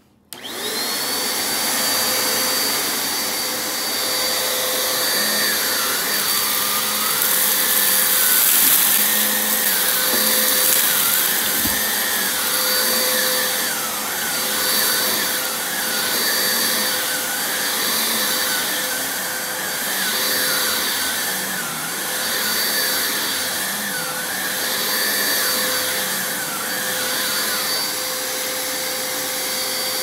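Dirt Devil Razor Pet upright vacuum cleaner switched on, its motor spinning up quickly to a steady high whine and then running continuously while it is pushed over a carpet rug, with a wavering tone riding over the steady hum.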